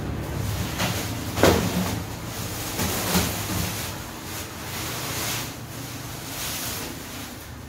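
Clear plastic stretch wrap crinkling and rustling as it is peeled off an upholstered bed frame, with a sharp crackle about a second and a half in.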